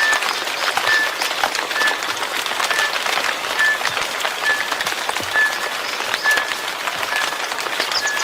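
Steady rain falling, a dense patter of drops. A short high chirp from a frog or insect repeats about once a second.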